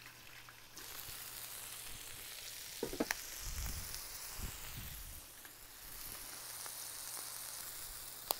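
Burgers and bacon sizzling on a Blackstone flat-top griddle, a steady high hiss. About three seconds in come a couple of sharp metallic clinks as the steel melting dome is lifted off the burgers, followed by a few soft knocks.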